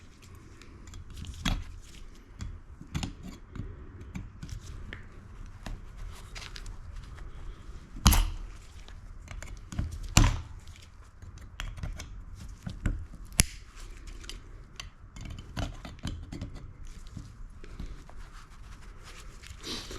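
Pliers scraping and clicking on a Chevy squarebody door lock cylinder as its crimped-on chrome cover is peeled off, with a few sharp knocks, the loudest about eight and ten seconds in.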